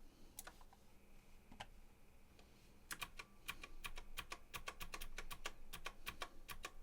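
Typing on a computer keyboard: a few scattered key clicks, then a quick, steady run of keystrokes starting about three seconds in.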